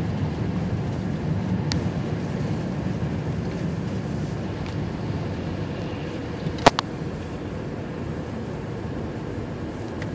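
Steady road and engine rumble of a car heard from inside the cabin, easing slightly over the stretch, with a sharp double click about two-thirds of the way through.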